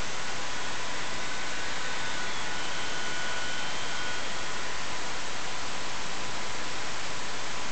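Steady hiss of wind buffeting the microphone, with faint thin whines held underneath it.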